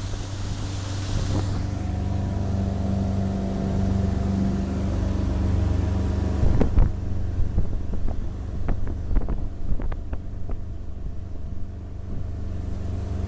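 1985 Sea Sprite motorboat's engine running at a steady speed under way. There is wind on the microphone in the first second or so, and a scatter of short knocks in the second half.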